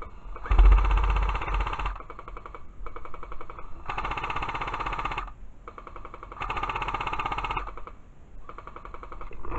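Airsoft light machine gun firing full-auto in three bursts, each a rapid rattle of shots lasting about a second and a half, the first and loudest starting about half a second in, with a weaker rattle between bursts.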